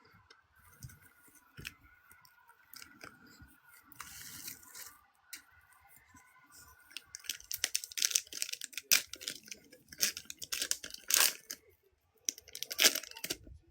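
Trading-card pack wrappers being torn open and crinkled by hand: scattered sharp crackles that grow busy and dense about seven seconds in.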